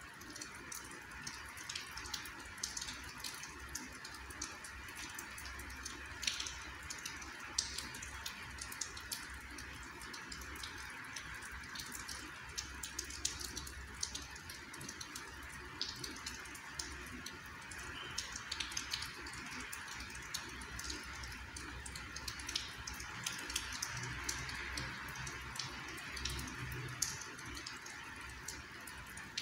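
Light rain falling, with many scattered drops ticking and dripping close by.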